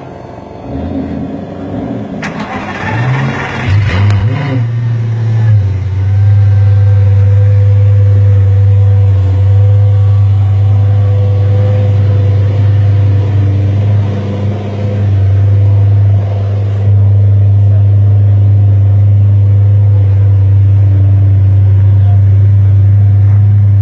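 Lamborghini Gallardo's V10 starting about two seconds in: a short burst that runs briefly higher in pitch, then settles into a steady, loud idle, with a short dip around the middle.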